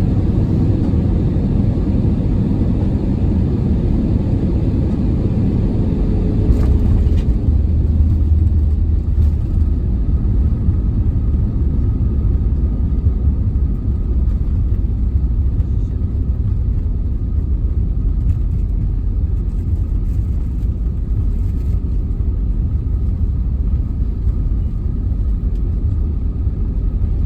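Steady low rumble inside the cabin of an Airbus A320 airliner during its landing. A humming tone fades out about seven seconds in.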